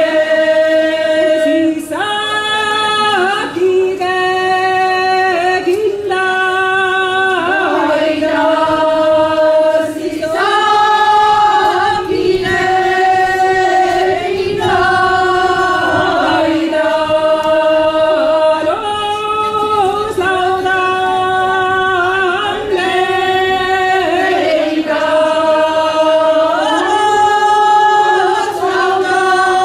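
Folk vocal ensemble, mostly women's voices, singing unaccompanied in parts: a lower line held on long notes under a higher melody, the notes changing every second or two.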